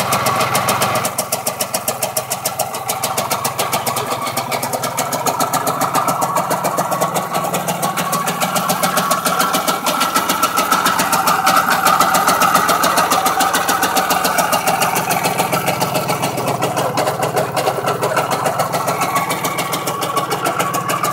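IZh Planeta Sport motorcycle's single-cylinder two-stroke engine idling steadily, its rapid exhaust pulses running on without a break.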